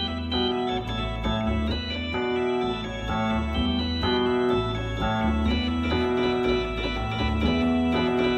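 Nord Electro 5D playing a Vox Continental–style combo organ sound: bright, buzzy organ chords with a Fender Rhodes electric piano sample split on the lower keys, carrying a moving bass line underneath.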